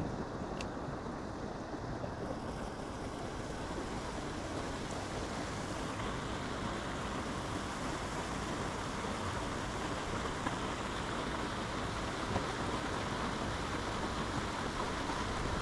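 Steady wind noise rushing and buffeting on the microphone.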